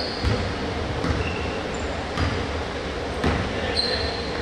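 Basketball bouncing on a gym floor: four dull thuds spaced about a second apart, with short high sneaker squeaks between them.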